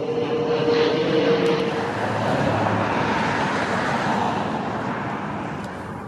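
Steady rushing engine noise of a passing vehicle, with a held tone in the first couple of seconds, slowly fading toward the end.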